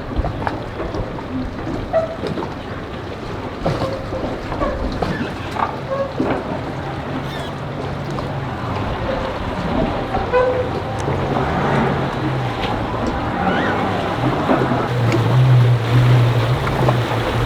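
Wind buffeting the microphone over water at a boat ramp, with a boat engine's low steady drone coming in about six seconds in and growing louder near the end.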